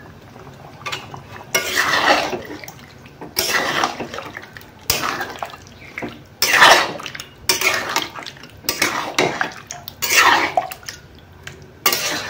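A metal spatula stirs and scrapes chicken curry around an aluminium kadai, with a wet scrape about every second and a half.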